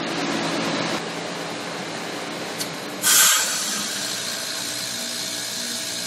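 A heat pump's outdoor unit switching into defrost. It runs steadily, then about three seconds in a loud hissing rush bursts out as the reversing valve switches the refrigerant's direction and releases pressure, settling into a steady hum. This is the normal defrost-cycle noise.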